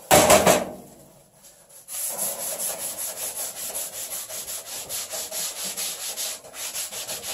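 Scouring pad on a handheld holder scrubbed back and forth on a stainless steel stovetop, in rapid, even strokes that start about two seconds in. A short loud burst of noise comes at the very start.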